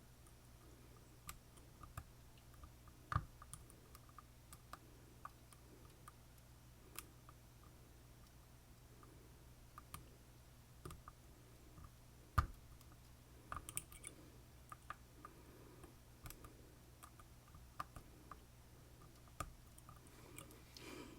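Scattered faint metallic clicks and ticks from lock picking tools working the pins of an Assa Twin Combi lock, with two sharper clicks about three seconds in and about twelve seconds in.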